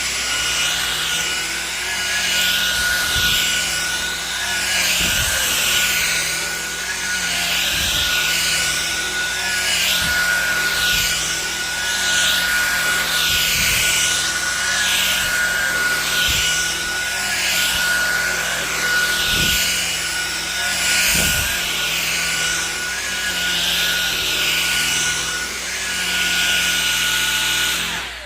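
Shark Detect Pro cordless stick vacuum running in Boost mode: a steady high-pitched motor whine under a rushing sound that swells and fades in a regular rhythm as it is pushed back and forth over carpet, cutting off at the very end.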